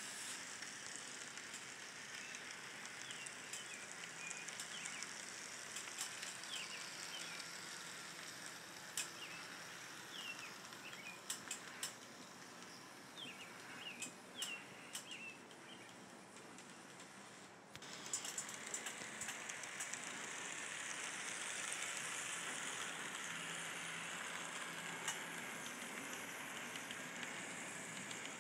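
Steady background hiss with scattered short bird chirps and a few sharp clicks around the middle; the hiss gets suddenly louder about 18 seconds in.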